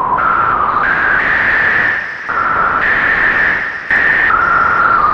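ARP 2600 synthesizer's noise generator played from the keyboard through a resonant filter: a hiss with a whistling tone on top that jumps from note to note, about seven notes, with a brief drop near two seconds in.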